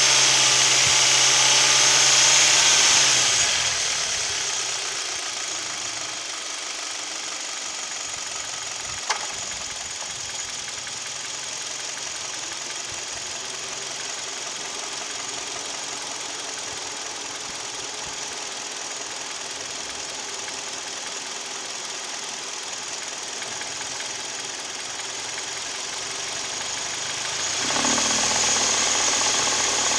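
Hyundai/Kia G4KD 2.0-litre four-cylinder engine idling, heard from inside the cabin, with the piston knock the owner complains of. It is louder with a hiss for the first few seconds, drops after about four seconds, and rises again near the end, with a single sharp click about nine seconds in.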